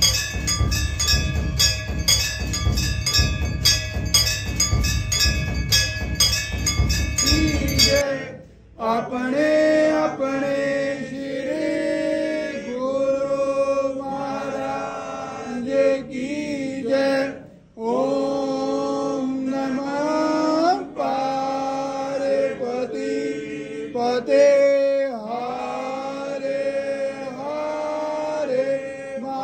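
Temple aarti: ringing bells and percussion struck in a fast, even rhythm of about three or four strokes a second, then about eight seconds in this breaks off abruptly into a man's voice chanting the aarti hymn in long, gliding notes.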